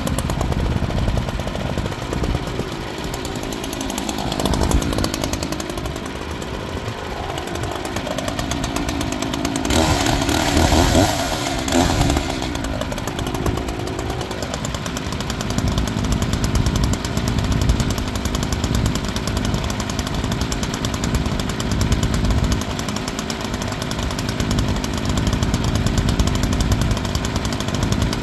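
Wood-Mizer band sawmill running steadily, its engine under load as the band blade saws through a large log. It grows louder for a couple of seconds about ten seconds in.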